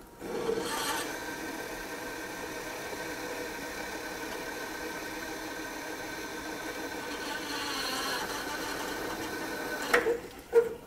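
Drill press cutting through thick steel with an annular cutter and cutting lube: a steady metallic cutting whine made of several high ringing tones over the motor. Near the end come two sharp clacks.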